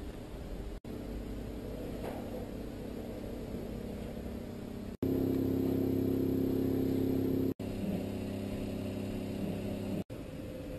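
A steady low hum made of several held tones, cut by brief dropouts about every two to three seconds, after which its loudness and tone mix shift; it is loudest for about two and a half seconds from five seconds in.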